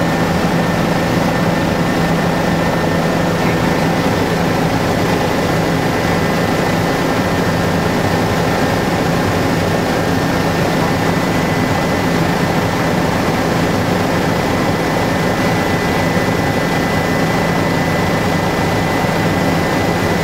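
Helicopter engine and rotors running steadily in flight, heard from inside the cabin: a loud, even drone with a steady low hum and a faint high whine.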